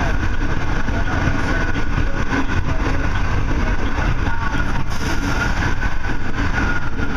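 Steady running noise of a Metra commuter train at speed, heard from inside its cab car: an even, low rumble of wheels on rail with a thin, steady whine above it.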